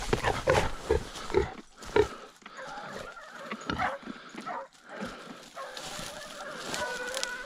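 Wounded wild boar grunting and squealing in dense scrub: a rapid run of harsh grunts in the first two seconds, scattered grunts after, and a long, steady squeal near the end.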